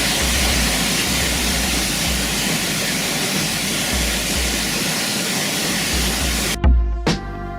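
Waterfall rushing in a steady, dense roar of water, with a low rumble coming and going beneath it. About six and a half seconds in it cuts off abruptly and electronic music with a beat begins.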